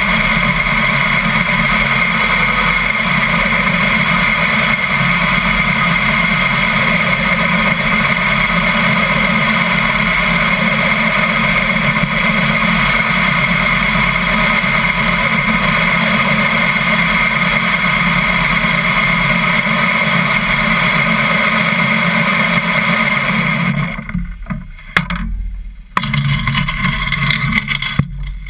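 Harley-Davidson motorcycle's V-twin engine running at low speed, a steady dense drone. About 24 seconds in the sound breaks up and drops away, comes back loud for a moment, then fades.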